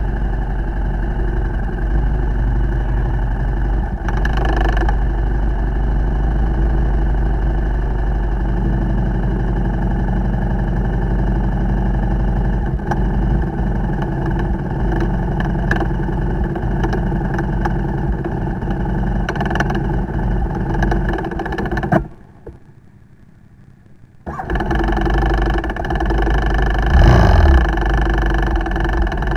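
KTM 1190 RC8 R's V-twin engine running at a standstill, the engine that has just broken down on the ride. About 22 seconds in it cuts out for a couple of seconds, then is restarted and revved once briefly.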